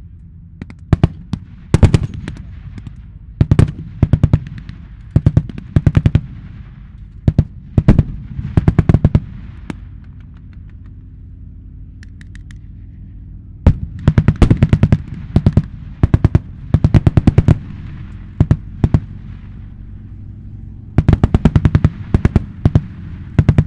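Machine-gun fire in short rapid bursts, mixed with single shots, with a lull of about three seconds near the middle before the firing picks up again. A steady low rumble runs underneath, from the running armoured vehicles.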